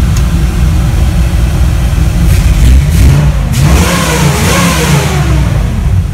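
Rat rod truck's engine running, heard from inside the cab, revved once about three and a half seconds in, the pitch rising and falling back over about two seconds. The owner says the engine computer is still relearning its idle since the battery died, so it does not yet idle correctly.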